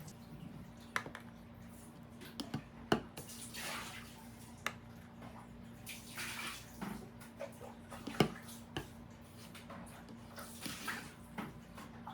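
Household washing: water splashing in three short spells, with scattered knocks and clinks of hard objects. The loudest clink comes about eight seconds in. A faint steady hum runs underneath.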